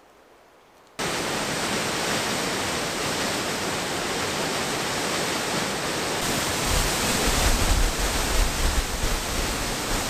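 Waterfall: a loud, steady rush of falling water that cuts in suddenly about a second in, with a deeper rumble joining from about seven seconds.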